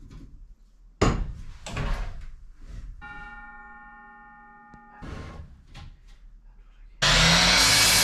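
Wood knocking as lumber is handled and set on the saw. About seven seconds in, a DeWalt sliding miter saw starts suddenly and runs loud and steady, cutting glued-up 2x4 stock to length.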